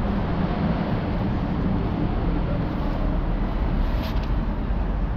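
Steady rumble of road traffic on the bridge overhead, echoing in the concrete underpass.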